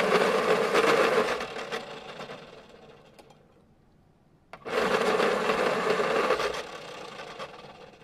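Pencil sharpener grinding a pencil in two runs of about three seconds each. The first is loudest at its start and fades; the second begins about four and a half seconds in.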